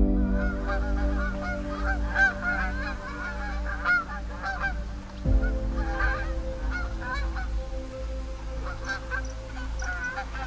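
A flock of geese honking in flight, with many overlapping calls throughout. Soft, sustained background music sits underneath and changes chord about halfway through.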